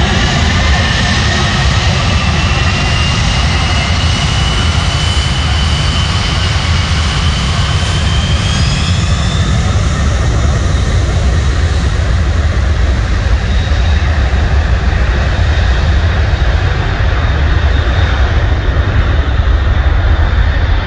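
Boeing 747-400 Dreamlifter's four Pratt & Whitney turbofans at takeoff power during the takeoff roll: a loud, deep rumble with a fan whine that rises in pitch over the first nine seconds or so. The rumble grows a little louder near the end as the aircraft rotates.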